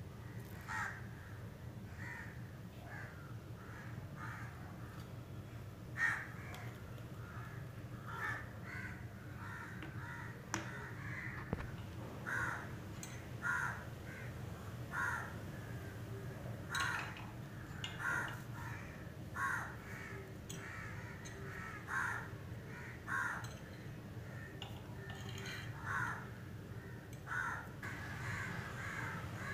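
A bird calling over and over in short calls, about one every second or so, over a steady low hum.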